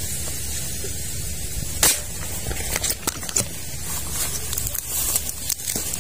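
Grass and leaves rustling with many small clicks as someone moves through creek-bank vegetation, over a steady hiss. One sharp crack stands out about two seconds in.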